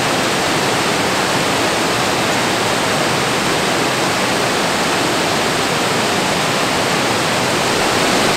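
Waterfall: white water pouring over rock and into a pool, a steady, unbroken rush.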